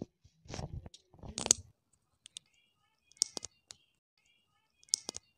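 Small plastic Lego parts being handled: a soft rubbing and rattling in the first two seconds, then a few sharp plastic clicks around three seconds in and again near the end as a minifigure and its toy rifle are fitted together.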